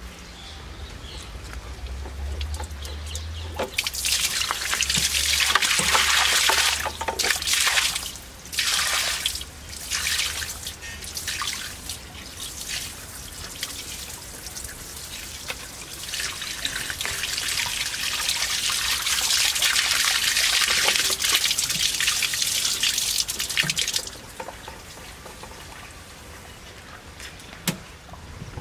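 Water rushing and splashing through PVC drain pipework at a ball check valve, in two long loud spells with shorter gushes between and quieter trickling around them.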